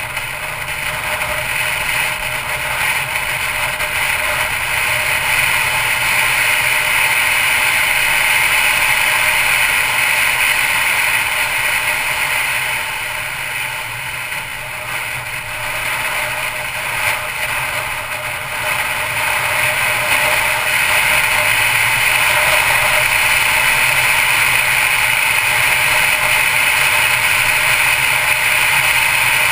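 Mercedes-Benz C250 Coupe driving at road speed: steady engine, tyre and wind noise. It eases off for a few seconds around the middle and then grows louder again.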